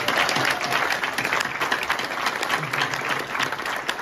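Live audience applauding, many people clapping at once in a dense, steady patter.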